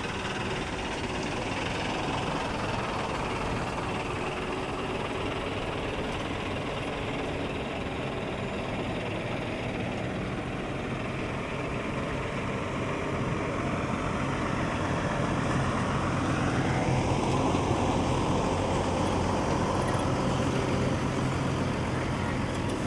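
Heavy truck diesel engines running with a steady low hum that grows louder about fifteen seconds in.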